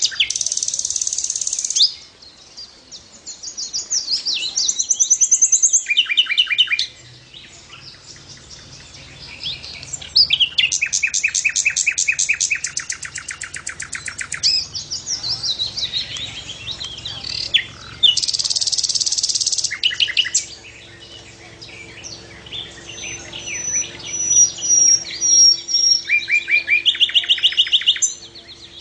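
Srikatan flycatcher singing a long, varied chattering song: rapid buzzy trills of quickly repeated notes alternate with whistled phrases and short chirps.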